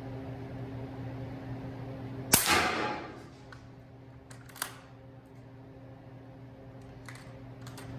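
A single suppressed shot from an 8-inch bolt-action .300 Blackout firing 220-grain subsonic ammunition through a Dead Air Nomad LT suppressor, about two seconds in: one sharp report with a short fading tail. A smaller sharp click follows about two seconds later.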